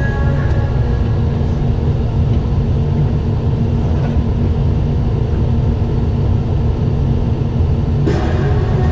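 Doosan 160 wheeled excavator's diesel engine running steadily, a deep rumble heard from inside the cab. Music comes in near the end.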